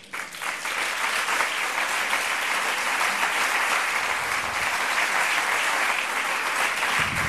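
Audience applauding: a dense, steady round of clapping that breaks out suddenly right after a rhetorical punchline.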